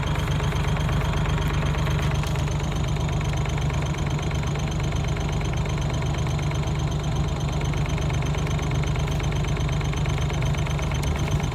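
A vehicle engine running steadily, with a constant low hum and an even rapid ticking.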